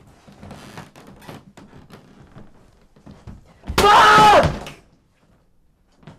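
A young man's loud anguished scream, lasting about a second, about four seconds in. Before it come faint scattered knocks and taps.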